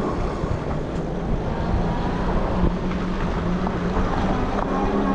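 Wind rushing over the microphone of a moving electric bike, with a steady low hum from the ride that rises slightly in pitch near the end.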